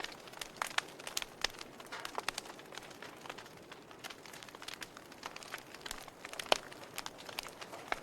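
Wood fire burning in a fireplace: irregular crackles and sharp pops over a steady soft hiss, with one louder pop about six and a half seconds in.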